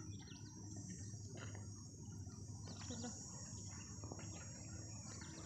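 Faint open-air ambience: a steady high-pitched insect drone over a low rumble, with faint distant voices.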